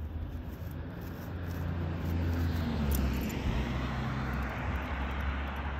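A car passing on the road, its tyre and engine noise swelling to a peak about three seconds in and then fading, over a steady low traffic rumble.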